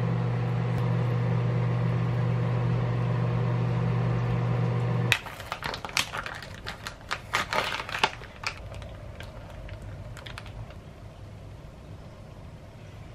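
A steady low hum that cuts off suddenly about five seconds in, followed by the crinkling and rustling of a plastic pouch of chicken breast being squeezed out onto a plate, with a few light clicks.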